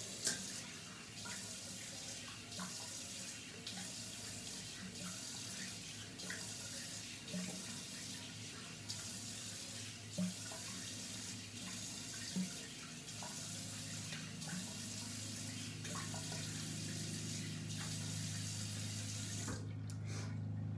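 Bathroom sink tap running, the stream broken up again and again as water is splashed with the hands, with a few light knocks. The tap is shut off near the end.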